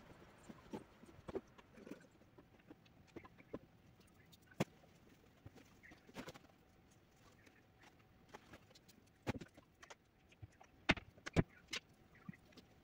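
Scattered light clicks and knocks of clothes and a plastic hanger being handled, then a few sharper knocks of footsteps on a tiled floor near the end.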